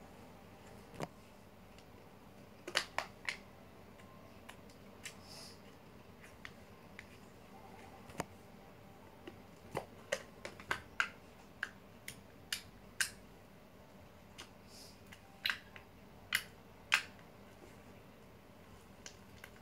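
Slime being handled and pressed, giving scattered sharp clicks and pops at an irregular pace.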